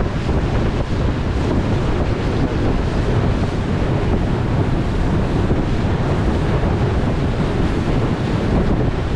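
Steady wind noise on the microphone of a moving boat, with the rush of water beneath it.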